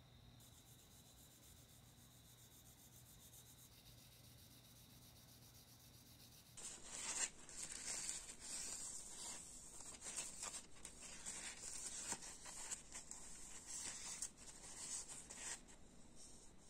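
Near silence for about six seconds, then a paper towel rubbing over a wet, glossy plastic model car body in a run of quick, uneven wiping strokes.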